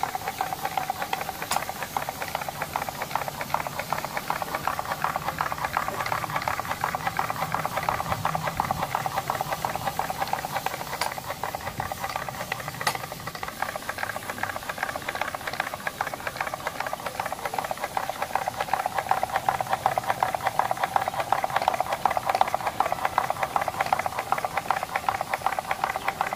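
Homemade single-cylinder spark-ignition petrol engine, its cylinder made from a Maruti Gypsy brake wheel cylinder and its connecting rod from a sewing machine, running fast with a rapid, even clatter, a little louder in the second half.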